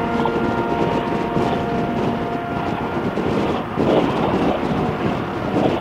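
Harley-Davidson motorcycle running at road speed, with heavy wind buffeting on the microphone. A steady engine tone fades under the wind about halfway through.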